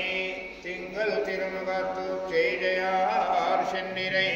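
Male voices chanting a Hindu devotional hymn in a sung, melodic style, over a steady low tone.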